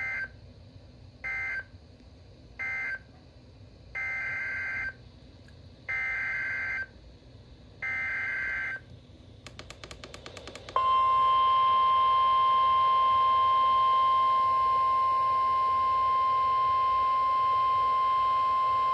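NOAA Weather Radio EAS/SAME digital data bursts, a buzzy two-tone screech. Three short end-of-message bursts close the severe thunderstorm warning, then three longer header bursts of about a second each open the next warning. After a brief rapid clicking, the steady 1050 Hz weather radio warning alarm tone sounds loudly from about eleven seconds in.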